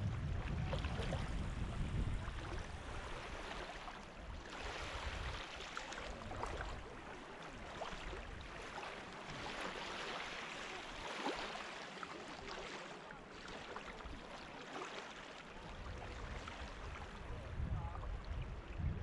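Small waves from a calm sea lapping at the water's edge, with the hiss and fizz of water washing up over sand and draining back. A low rumble sits under it near the start and again near the end.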